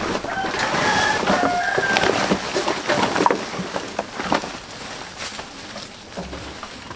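Plastic bags and woven sacks rustling and crinkling as plastic waste is handled and sorted by hand, louder in the first half, with a few short high chirps in the first two seconds.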